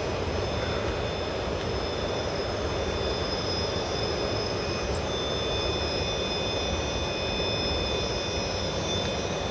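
RC rock crawler's Holmes Hobbies Revolver V2 brushless motor and ESC whining at crawl speed, a steady high-pitched whine of several tones over a steady rush of noise.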